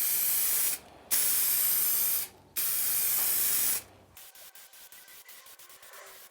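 Aerosol rattle can spraying clear coat, a loud even hiss in three passes of about a second each with brief pauses between; the spraying stops about four seconds in.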